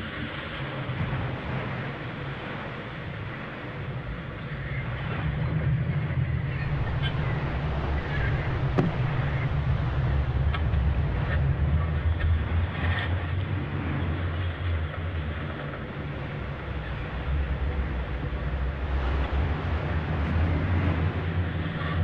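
Fishing trawler's engine droning low and steady under rushing, splashing sea water and wind buffeting the microphone, with a few brief gull cries.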